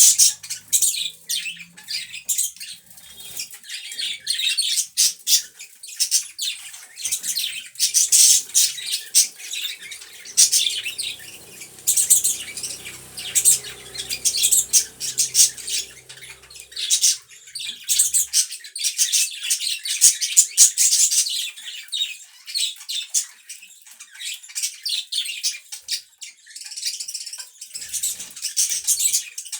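Pet budgerigars chattering and chirping without pause, a dense run of quick high-pitched calls from more than one bird.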